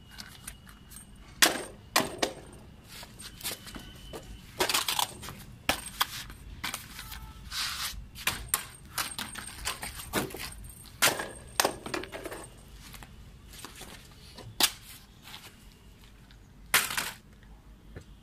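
Plastic flying-saucer toy ball thrown about on a concrete floor by a wall, clattering: a series of sharp, uneven plastic knocks and clicks as it hits, bounces and slides, with lighter handling clicks between.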